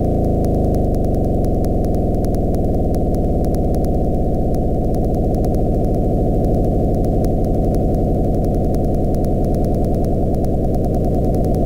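Synthesized electronic noise drone: a dense, low mass of many tones whose pitches slowly shift and cross over one another, with nothing in the higher register except a faint, quick ticking.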